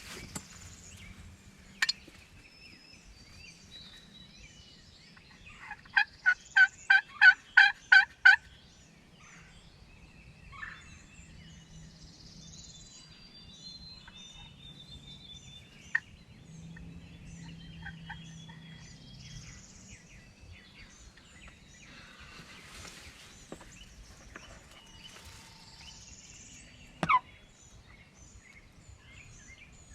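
Turkey yelping: a run of about nine loud, evenly spaced yelps over a couple of seconds, about six seconds in. Faint songbirds sing throughout, with a few sharp clicks.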